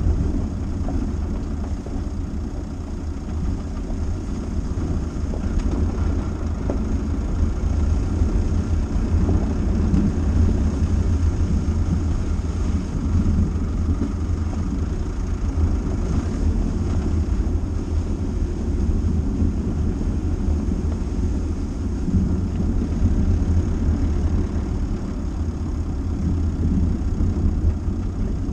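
Dacia Duster driving steadily: a continuous low engine and road rumble with no sharp changes.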